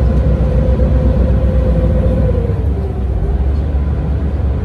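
Motorboat engine running at speed over rushing, churning water: a loud, steady low rumble with a hum that drops slightly in pitch about two and a half seconds in.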